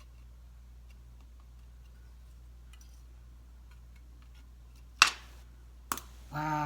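Quiet room tone with faint scattered ticks, broken about five seconds in by a loud sharp knock, then a second click and a short vocal sound near the end.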